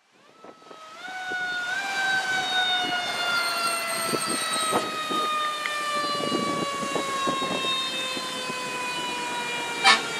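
Fire engine siren sounding a single wailing tone that steps up in pitch twice at the start and then slowly falls, the wind-down of a mechanical siren, over passing traffic. A short, loud burst comes near the end.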